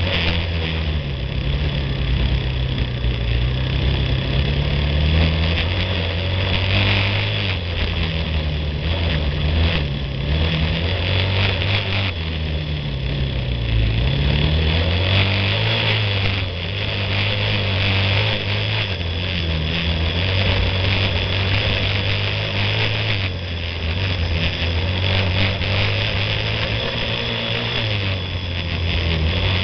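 Yamaha quad's single-cylinder four-stroke engine running under way over a dirt trail, its pitch rising and falling with the throttle, over steady wind and ground noise.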